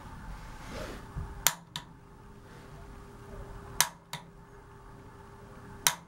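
Piezo pilot igniter on a gas water heater snapping three times, about two seconds apart. Each sharp click is followed a moment later by a softer one as the button is pressed and let go, while the pilot is being lit.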